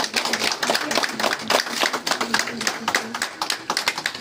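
Audience applauding: many hands clapping unevenly.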